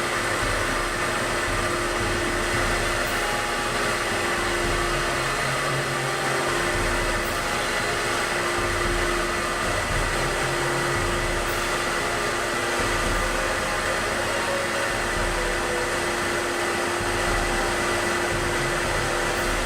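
Steady rushing machine noise with a constant hum running under it.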